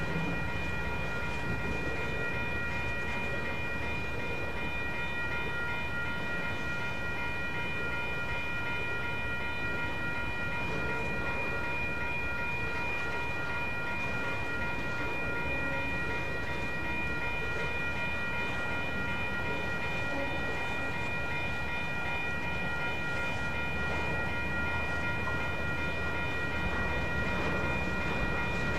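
Empty ethanol tank cars of a freight train rolling past at close range, a continuous steady rumble of wheels on rail. A steady high-pitched tone rings over it the whole time.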